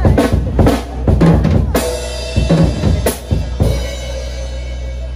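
A live drum kit played in a quick run of bass drum, snare and tom hits with two cymbal crashes, stopping about three and a half seconds in. A steady low hum runs underneath.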